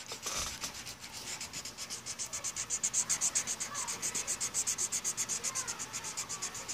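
Felt-tip marker scribbling quickly back and forth on paper to fill in a drawn heart. The scratchy strokes come evenly, about seven a second, and grow a little louder partway through.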